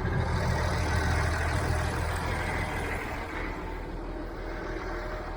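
Massey Ferguson 1105 tractor's diesel engine running as the tractor is eased back to the baler hitch, the engine sound dropping back a little about halfway through.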